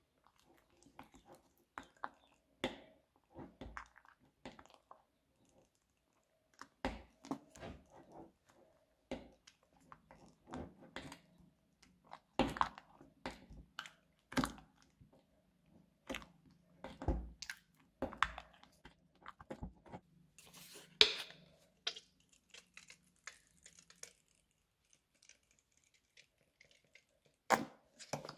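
Slime mixed with kinetic sand being stirred and folded with a plastic spatula in a bowl: irregular sticky pops, squelches and crunches, with the spatula now and then knocking against the bowl.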